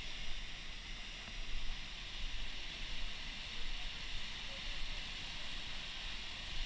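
Steady rushing hiss of a rocky river waterfall pouring into a pool below, with an uneven low rumble underneath.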